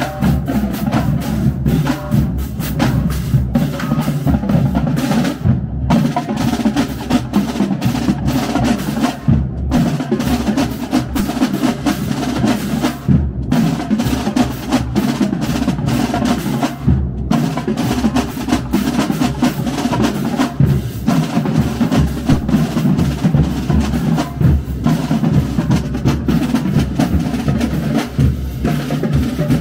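Marching band snare drumline playing a fast cadence in unison, with dense rapid strokes and a short, sharp cut-off roughly every four seconds.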